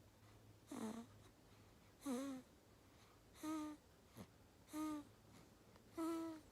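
A newborn baby snoring in sleep: short snores with a squeaky tone, one on each breath, five of them at an even pace of about one every second and a quarter.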